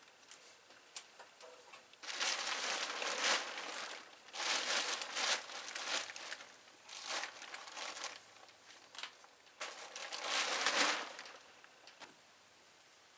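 Plastic tarp crinkling and rustling in four bursts as it is pulled and spread over roof rafters.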